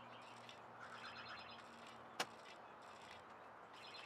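Faint birdsong, short trilled chirps, under a low steady hum, with one sharp click about two seconds in.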